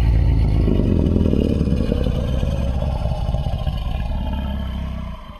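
A film creature-movie sound effect: a loud, low rumble with a grainy, noisy layer above it, easing slowly in level and then cutting off just before the end.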